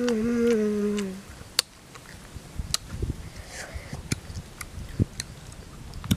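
A boy hums a long closed-mouth "mmm" of enjoyment that slides slowly down in pitch and stops about a second in. Then come close-up chewing and lip-smacking sounds with scattered sharp clicks as he eats pieces of guava dipped in chili.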